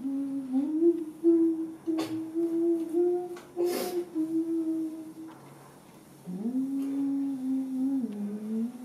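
A person humming a slow tune in long held notes, breaking off about five seconds in and then starting again, with a couple of brief clicks.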